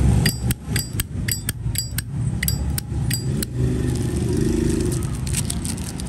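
Zippo lighter being handled: a quick run of about a dozen sharp metallic clicks and clinks in the first three and a half seconds, then a low steady rumble of street noise.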